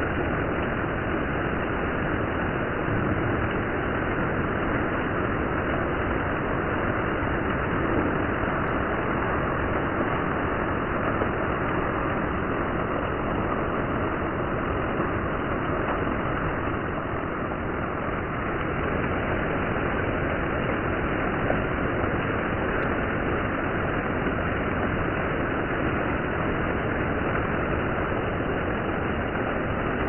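Heavy monsoon rain falling on forest trees and foliage, a steady unbroken hiss of rain.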